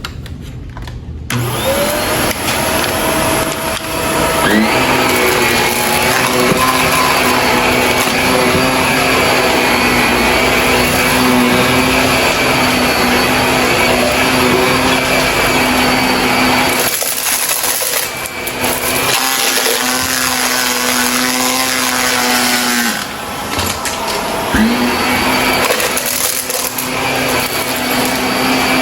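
Shark vacuum cleaner motor spinning up about a second and a half in and running steadily with a hum and rushing hiss, cutting out briefly and spinning up again near the end.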